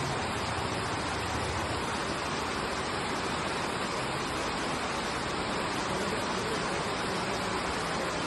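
Steady rain falling: an even hiss with no pauses or single drops standing out.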